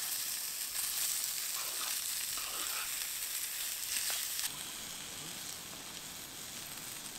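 Chunks of Australian salmon sizzling as they fry in a pan over campfire coals, with a few light taps of the utensil against the pan. The sizzle turns quieter about four and a half seconds in.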